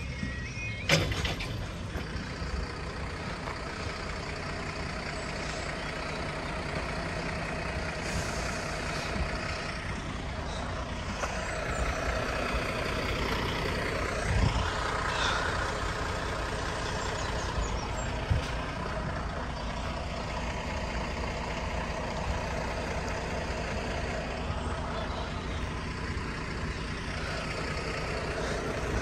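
A large engine running steadily, with a sharp knock about a second in and the sound swelling and changing pitch around fourteen seconds in, as of a vehicle passing.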